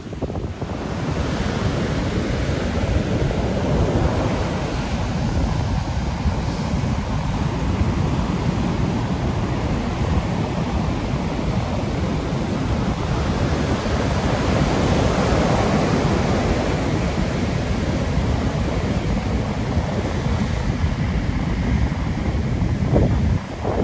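Heavy, wind-churned surf breaking and washing up the sand, with strong wind buffeting the microphone.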